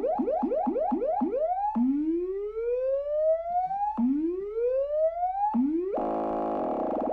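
Max MSP sine-wave oscillator (cycle~) whose pitch is swept by a phasor~ ramp from 220 to 880 Hz: rising glides that snap back down and repeat about four times a second, then two slow glides of about two seconds each as the ramp rate is turned down. About six seconds in, the ramp is pushed into the audio range and the sweep turns into a steady buzzy tone.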